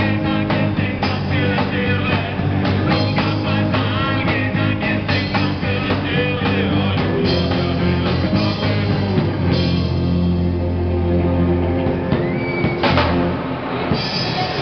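Live rock band playing: drum kit, electric and acoustic guitars and group vocals. After about seven seconds the drumming thins out into long held chords, and the song closes with a final hit about thirteen seconds in.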